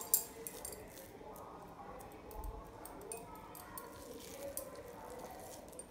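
Hands squeezing and patting soft, moist corn-and-semolina dough into patties: soft squishing with scattered light clicks, a cluster of them right at the start.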